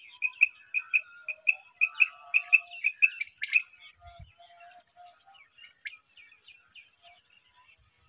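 Hand-held quail caller sounding a regular run of short, high whistled pips, about four a second, to lure quail; the pips stop about three and a half seconds in and fainter scattered chirps follow, with a soft low thump about four seconds in.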